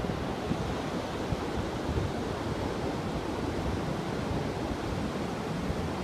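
Pacific surf breaking on a flat sandy beach: a steady, even rushing wash, with wind gusting on the microphone in low, irregular rumbles.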